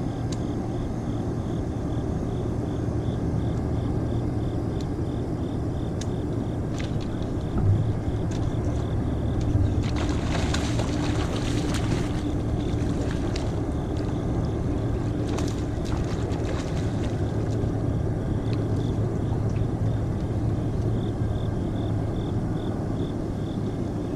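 Steady, loud low hum of a boat motor. About ten to thirteen seconds in, a hooked bass splashes and thrashes at the surface.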